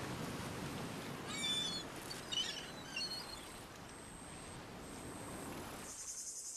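Desert outdoor ambience: a steady hiss of background noise with a few high bird chirps about one to three seconds in. A high insect trill starts near the end.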